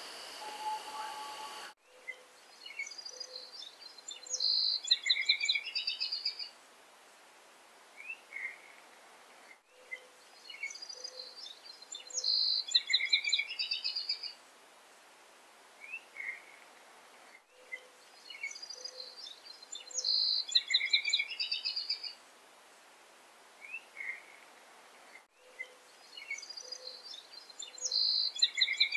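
A short recording of songbirds singing, played on a loop: the same few seconds of high chirps and trills over a steady hiss repeat about every eight seconds, each repeat starting after an abrupt cut. A couple of steady ringing tones sound just before the first loop begins.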